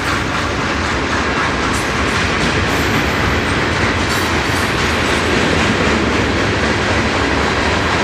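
Freight train cars rolling past close by, centerbeam flatcars and boxcars: steady loud wheel-on-rail noise with a few sharp clicks.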